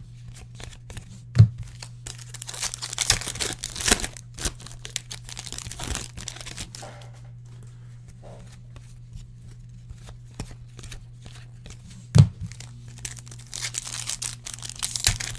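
Trading card pack wrappers tearing and crinkling as football card packs are opened and the cards handled, with two sharp knocks, one about a second and a half in and one about twelve seconds in. A steady low hum underneath.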